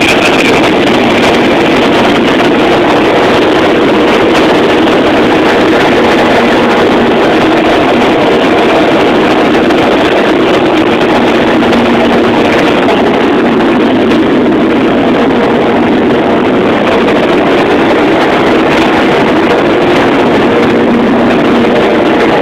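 Loud, steady machinery noise in a tanker's pumproom: an even, unbroken din with faint steady hums beneath it.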